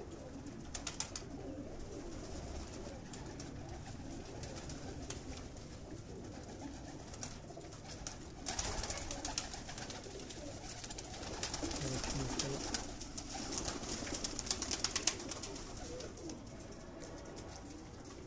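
A flock of domestic pigeons cooing steadily, with two stretches of rapid clicking and wing flapping, about halfway through and again a few seconds later.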